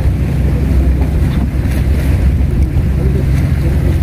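Steady low rumble of wind buffeting the microphone on a seawall, with the sea behind it.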